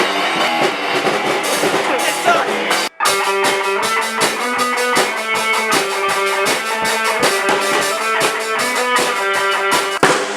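Rock music with guitar and drum kit and a steady beat; it cuts out suddenly for a moment about three seconds in, then starts again.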